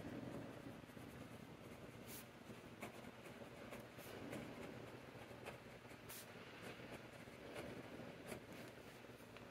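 Faint scratching of a Kaweco Sport fountain pen's gold-toned double broad nib writing on grid-ruled notebook paper, with a couple of light ticks.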